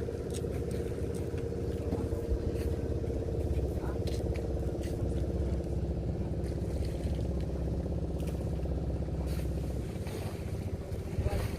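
A motor engine running steadily at an even speed, with a low rumble that drops away about ten seconds in.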